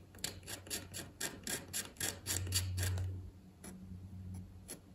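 A small homemade chisel blade in a hobby-knife handle scraping and chipping moulded pegs off a styrene plastic deck part. It makes a run of short scraping clicks, about four a second, that thins out briefly past the middle and picks up again near the end.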